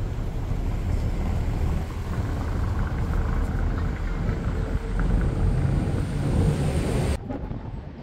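Outdoor street ambience dominated by a low, fluctuating rumble. It changes abruptly near the end.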